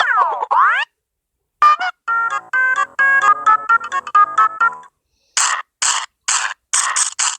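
A string of cartoon sound effects: a few falling pitch glides, then a quick run of short electronic-sounding notes that climb in pitch, then a regular series of short hissing bursts, about two a second and coming slightly faster near the end.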